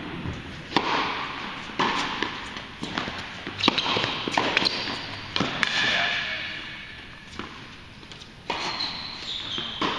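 Tennis balls struck by rackets and bouncing on a hard court during a doubles rally: a string of sharp pops, roughly one a second, with a gap near the end, echoing in the large hall.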